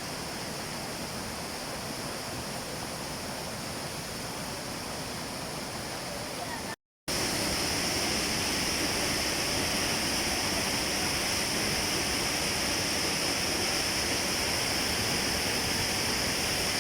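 Steady rush of a waterfall. About seven seconds in it cuts out for a moment and comes back slightly louder and hissier.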